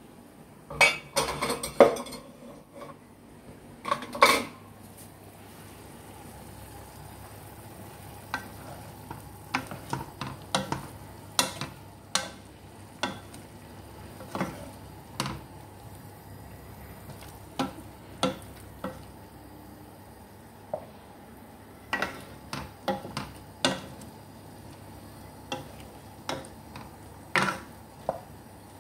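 Wooden spoon stirring pork adobo with potatoes and carrots in a non-stick pan, giving irregular knocks and scrapes against the pan. A louder clatter of cookware comes in the first couple of seconds and again about four seconds in.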